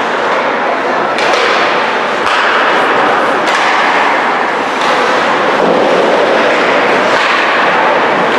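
Ice hockey play in a rink: skate blades scraping on the ice and a few knocks of sticks and puck, over a steady loud noise.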